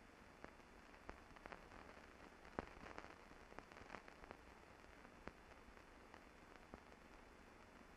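Near silence: faint hiss with scattered clicks and pops, the surface noise of an old film soundtrack, with one louder click about two and a half seconds in.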